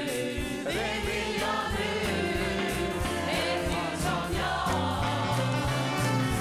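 Studio audience singing a Swedish pop song together in chorus, backed by a live band with drums, bass, keyboards and saxophone.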